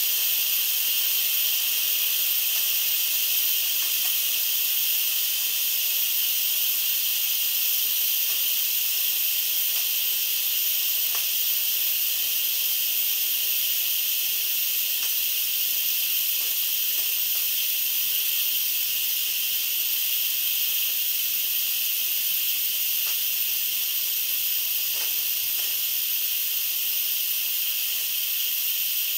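Electric pressure cooker venting steam through its release valve in a quick pressure release after cooking, a steady high-pitched hiss.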